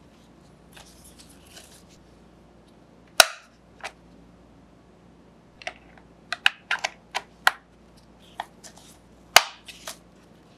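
Sharp clicks and taps of hard plastic as a light-up LED face mask is handled with gloved hands: one loud click about three seconds in, a quick run of clicks in the middle, and another loud click near the end.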